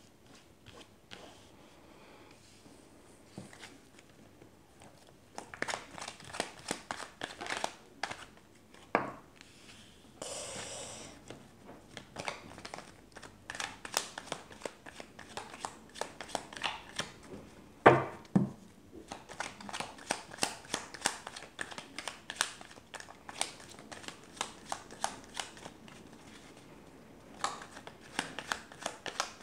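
A deck of oracle cards handled and shuffled by hand: spurts of quick light card clicks and flicks with pauses between, a short rush of sliding noise about ten seconds in, and one louder knock near the middle as a card or the deck is set down.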